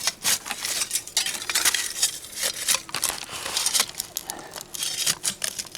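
Digging by hand through dump soil full of broken glass: a quick run of short scrapes and crunches with glass clinking.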